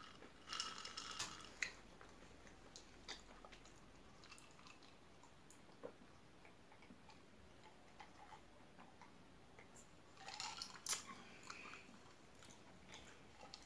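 Faint drinking sounds: sips and swallows of water from a glass, in two short spells about half a second in and again about ten seconds in, with a few small clicks between.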